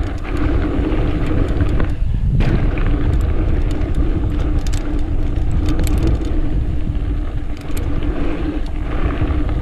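Mountain bike ridden fast down a dirt jump line: wind buffeting the microphone, knobby tyres humming and rumbling on the dirt, and chain and frame rattling in sharp clicks. About two seconds in the tyre noise drops out briefly as the bike leaves a jump, ending in a landing knock.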